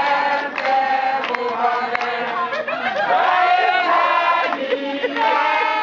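A group of voices chanting a song together, with long held notes.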